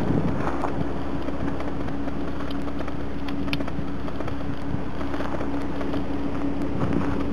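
Infiniti G37's 3.7-litre V6 idling with a steady hum, the car parked with its door open.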